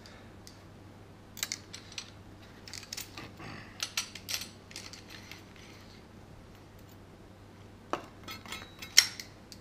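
Scattered small metallic clicks and clinks as a reciprocating saw's blade clamp is worked and the carbide grit blade is pulled out, with one sharper click near the end, over a faint steady low hum.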